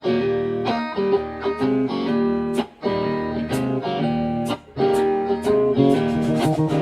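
Music: a guitar strumming chords, with two brief pauses in the strumming.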